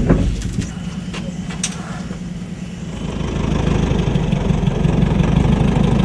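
A few sharp clicks, then about halfway through an engine comes in and runs steadily at idle, growing a little louder.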